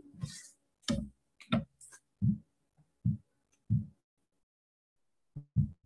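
Short, muffled fragments of voices that cut in and out, separated by dead silence.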